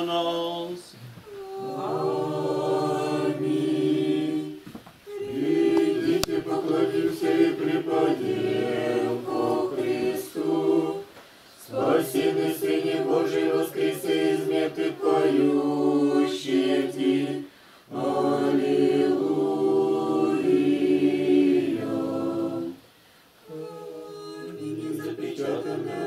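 Several voices singing Orthodox liturgical chant unaccompanied, in held notes, phrase by phrase with short breaks between phrases.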